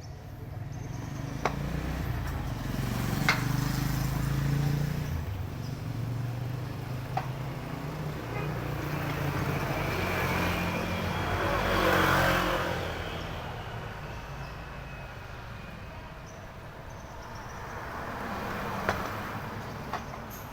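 A motor vehicle engine running steadily. The sound swells to its loudest about twelve seconds in and then fades, as if the vehicle is passing by. A few sharp clicks are heard in the first half.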